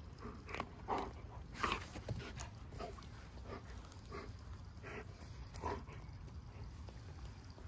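German shepherd making a run of short grunts and whines, about two a second, while mouthing a rope toy, thinning out near the end, over a steady low rumble.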